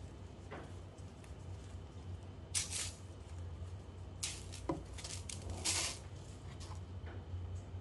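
Fresh pandan leaves rustling and crinkling in several short bursts as hands fold and knot them, over a low steady hum.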